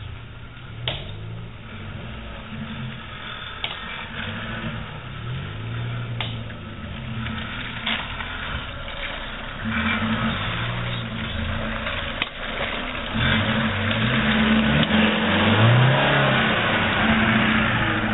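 Suzuki Jimny engine revving up and easing off again and again as the 4x4 crawls over a rough trail, growing louder as it comes close. A few sharp knocks sound along the way.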